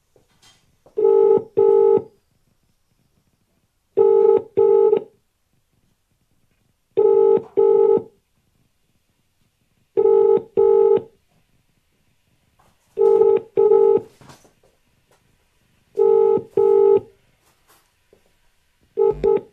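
British telephone ringing tone of an outgoing call that has not yet been answered: the double ring repeats about every three seconds, six full times and a seventh starting near the end.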